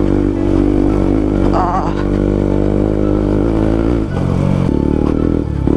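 Motorcycle engine running steadily as the bike rides along a rough dirt road. The engine note changes about four seconds in.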